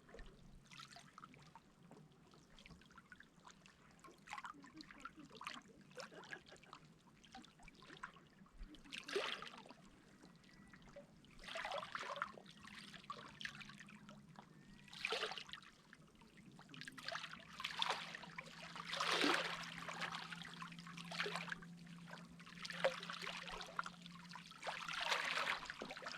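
Sea water lapping and splashing in irregular swells, each a second or so long, louder in the second half, over a steady low hum.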